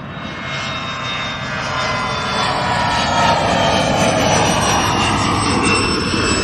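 Jet airplane flying past: engine noise swells to a peak around the middle, with high whining tones that slide slowly down in pitch.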